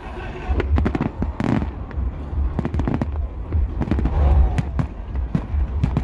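Aerial fireworks bursting in quick, irregular succession: a string of sharp bangs and crackles over a low rumble.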